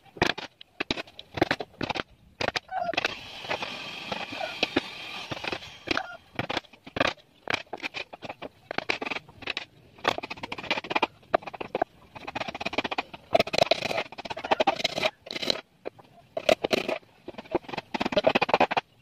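Irregular knocks and scrapes of wood being worked, with a denser scraping stretch a few seconds in.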